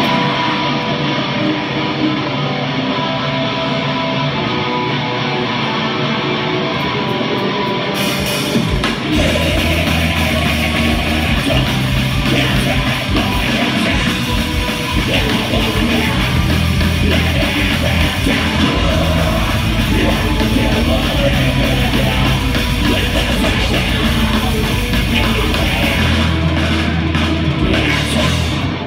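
Live metal band playing through a club PA: electric guitars open the song, and the full band comes in much louder and fuller about eight seconds in, with vocals over it.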